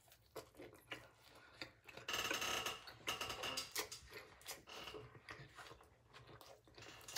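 Close-mouthed chewing of a full mouthful of taco: irregular wet clicks and smacks, with a louder noisy stretch of about a second starting two seconds in.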